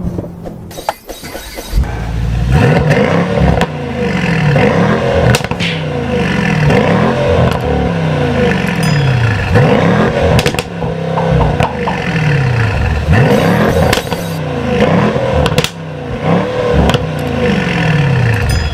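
A 2020 Mercedes-AMG S63's twin-turbo V8 revving again and again, its pitch rising and falling back every second or two.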